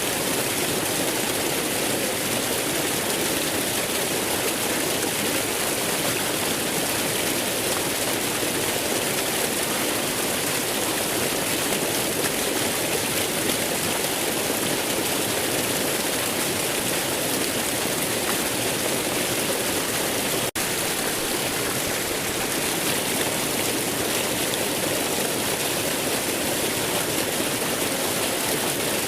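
Waterfall: a steady rush of falling water, with a split-second dropout about two-thirds of the way through.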